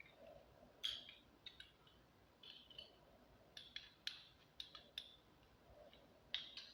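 Faint, irregular clicks and light scrapes of small kitchen utensils being handled, about a dozen in all, the sharpest about a second in, four seconds in and near the end.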